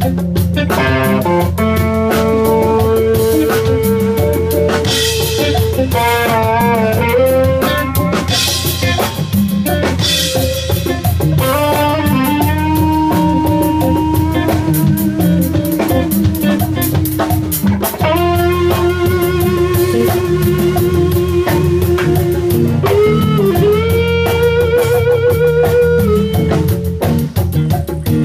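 Live jazz-fusion band playing: an electric guitar plays a lead of long held notes with vibrato and bends over drum kit, bass and percussion.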